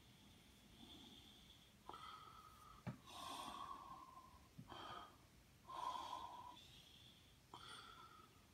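Faint breathing through the nose, soft puffs in and out about every second or two.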